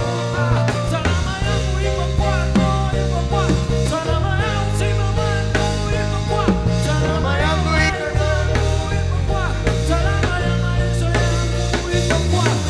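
Live gospel praise band music with a drum kit, a steady beat and a melodic line above a bass line.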